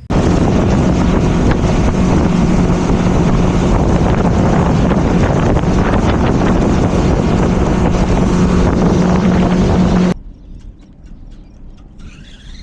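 Motorboat under way: a steady outboard engine hum under heavy wind buffeting on the microphone and rushing water. It cuts off suddenly about ten seconds in, leaving a much quieter stretch with faint ticks.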